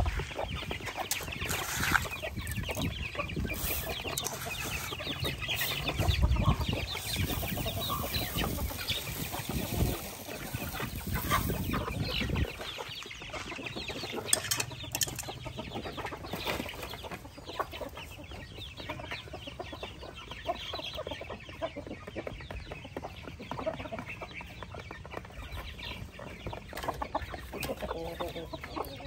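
Chickens clucking while they feed, with a busy scatter of small ticks and calls. A low rumble runs underneath and stops about twelve seconds in.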